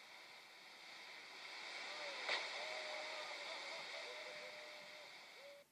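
Rushing spray and wind as a windsurf board planes through breaking surf, played through a television speaker; it swells to a peak about two seconds in, with one sharp click there, then eases off and cuts out at the end.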